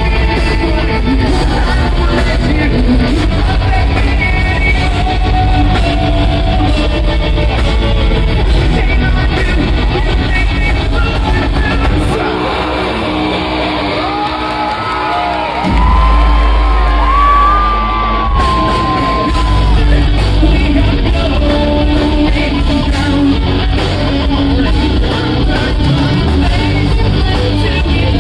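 Live rock band playing loud in a concert hall, heard from the crowd: electric guitars, bass and drums with sung and yelled vocals. About twelve seconds in, the bass and drums drop away for a few seconds, then the full band comes back in.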